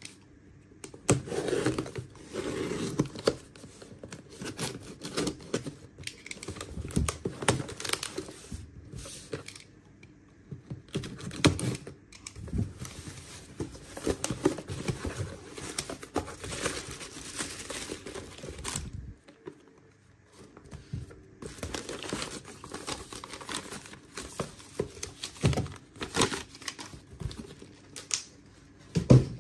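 Cardboard shipping box being opened by hand: packing tape slit with a box cutter and torn, flaps pulled open, and bubble wrap crinkling, in irregular rustles and scrapes with a brief lull in the middle. A few sharp knocks near the end as boxes are set down on the desk.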